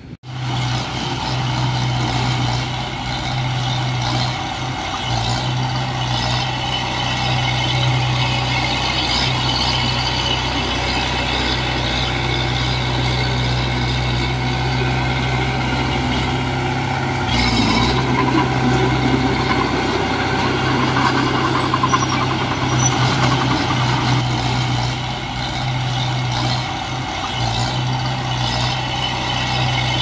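Komatsu bulldozer's diesel engine running steadily, with a brief rise in noise and a change in its note a little past halfway.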